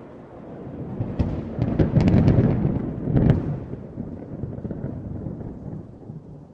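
Thunder: a low rumble swells, breaks into a loud crackling clap about two to three seconds in, then rolls away into a fading rumble.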